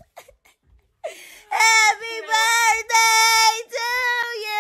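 About a second of near silence with a few faint ticks, then a high voice singing long, steady held notes with short breaks between them.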